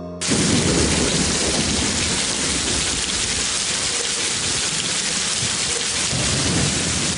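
Heavy downpour of rain, a dense steady hiss that begins abruptly a moment in, with a low rumble of thunder underneath.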